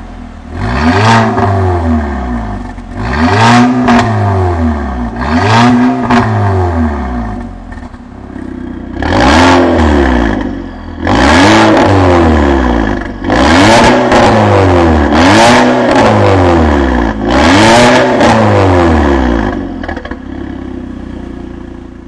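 Audi TTS (8J) turbocharged 2.0-litre four-cylinder revved repeatedly at standstill through an Armytrix valvetronic exhaust, each blip rising and falling in pitch. About three short revs come first, then, with the exhaust valves open, about five louder, longer revs.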